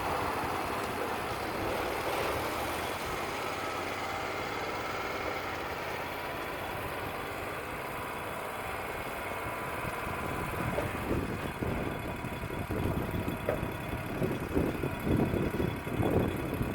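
Wood-Mizer LT35 portable sawmill running steadily. From about ten seconds in, irregular gusts of wind buffet the microphone and grow stronger.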